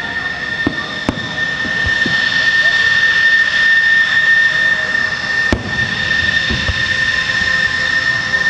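F-14D Tomcat's GE F110-400 turbofan engines whining steadily at ground idle, a high steady whine over engine rush. Two sharp cracks sound over it, about a second in and again midway.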